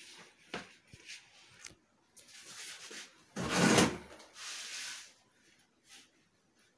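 Handling noise: a few light clicks and rustles, with one louder rustling thump about three and a half seconds in as the recording phone is moved.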